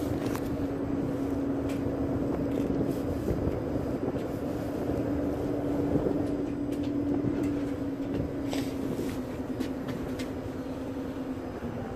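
Passenger ferry's engines running with a steady drone while it manoeuvres at the pier, with scattered light clicks and knocks; the drone weakens near the end.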